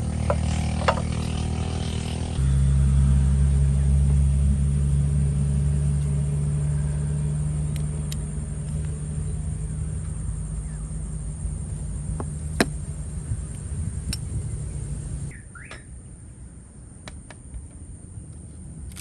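An engine running with a steady low hum, stepping louder about two seconds in and cutting off about fifteen seconds in. A few sharp clicks, and a faint chirp near the end.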